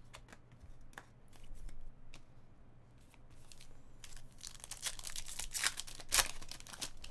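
Trading-card pack wrappers being torn open and crinkled, with cards handled: scattered light clicks at first, then a burst of tearing and rustling in the second half.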